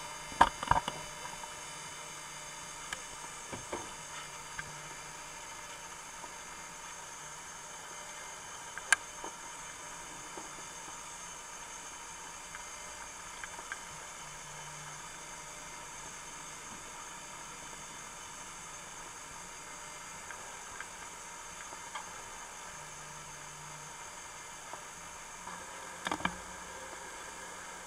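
Steady hiss with a faint, even electronic whine, broken by a few isolated sharp clicks: a cluster about a second in, one near nine seconds and a pair near the end.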